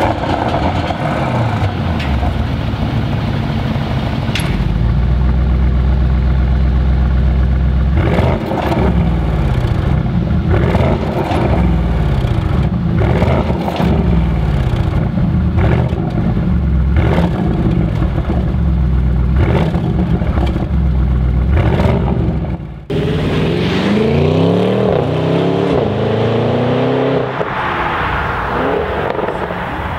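Audi RS6 C8's 4.0-litre twin-turbo V8 revved repeatedly while parked, with blips rising and falling every couple of seconds, heard through an Akrapovic exhaust and the factory RS sport exhaust in turn. About 23 seconds in it accelerates hard away, the pitch climbing and dropping at each upshift.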